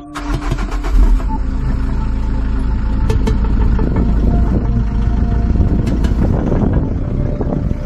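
Car engine running, heard right at its exhaust pipe: a deep, steady exhaust rumble that comes in suddenly and grows louder about a second in.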